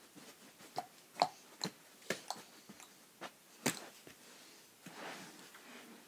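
Irregular sharp taps and knocks from someone moving about close to the microphone, the loudest about a second in and again near four seconds in, with a soft rustle around five seconds in.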